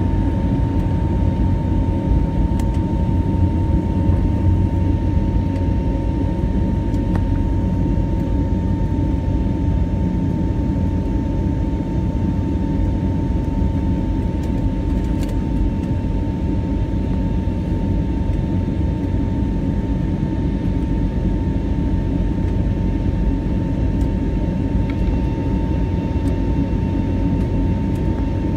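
Jet airliner cabin noise during the climb after takeoff: a steady low rumble of the engines with a constant whine above it.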